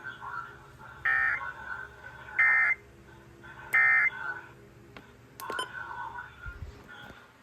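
EAS/SAME end-of-message data bursts from a NOAA Weather Radio broadcast: three short, buzzy digital tone bursts about a second apart, signalling that the alert message has ended.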